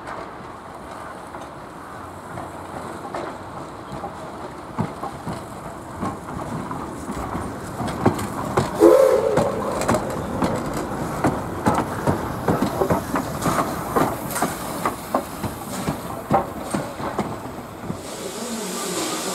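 Er-class 0-10-0 steam locomotive rolling on station tracks, its wheels clattering over rail joints and points. The knocks grow louder and closer together, with a brief toot about nine seconds in. Near the end a hiss of steam sets in.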